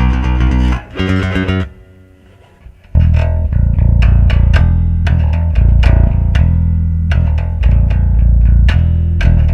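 Electric bass guitar played: a couple of held notes, a short pause, then from about three seconds in a steady run of plucked notes with a heavy low end.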